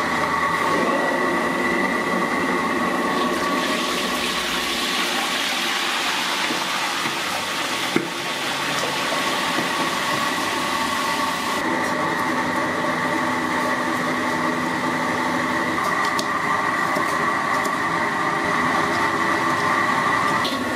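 Steady roar and hiss of a street-food gas burner with hot oil deep-frying, a faint steady whistle held over the noise. One sharp knock about eight seconds in.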